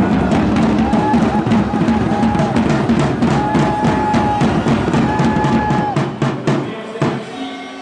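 Drum music with a steady beat and a repeated held note over it; the drumming stops about seven seconds in.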